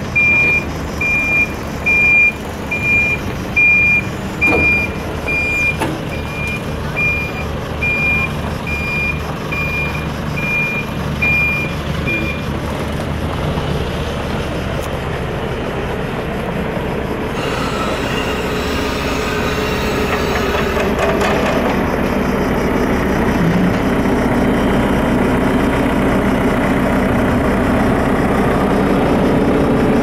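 Telehandler's reversing alarm beeping steadily at a high pitch, a little faster than once a second, over its engine running; the beeping stops about twelve seconds in, and the engine grows louder from about seventeen seconds in.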